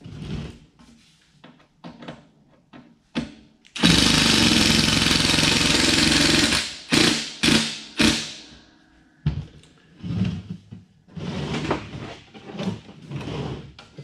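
Cordless drill running under load for about three seconds as a screw is driven through several layers of sheet-metal ductwork, then three short trigger bursts. Light clanks and rattles of the galvanized duct being handled come before and after.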